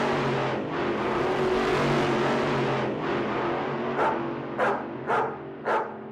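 A car's noise on the road until about three seconds in, then four short sharp animal calls about half a second apart.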